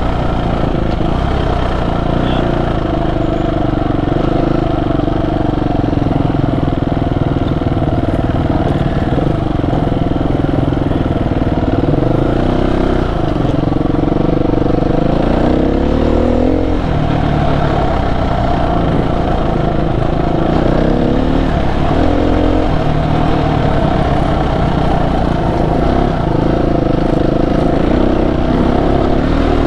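Dual-sport motorcycle engine running under way. Its pitch rises and drops back several times, as with throttle and gear changes.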